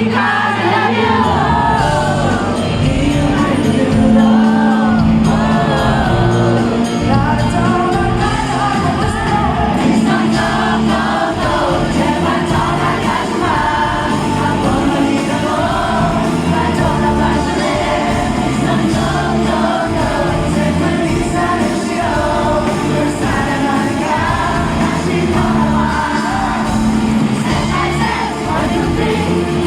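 Live rock band playing through a venue sound system: male lead vocals over electric guitar, bass guitar and drums, heard from the audience.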